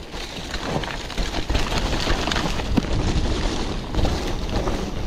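Mountain bike riding on a dirt trail: wind buffeting the camera microphone over a steady low rumble from the ride, with scattered knocks and rattles.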